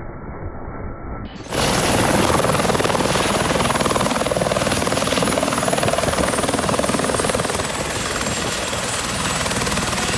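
A muffled low rumble gives way suddenly, about a second and a half in, to helicopter turbine engine and rotor noise, loud and steady, with a thin high whine that dips slightly in pitch near the end.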